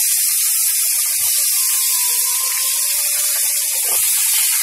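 Chopped tomatoes sizzling in hot oil in a non-stick kadai: a loud, steady frying sizzle.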